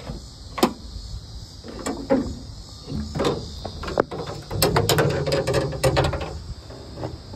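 Hood of a 2004 Jeep Wrangler being unlatched and raised: separate sharp clicks and knocks from the latches and hood, then a rattling clatter of metal clicks and thuds around the middle as the hood goes up.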